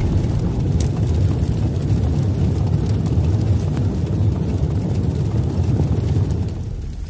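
Steady low rumbling sound effect with a faint hiss above it, fading toward the end.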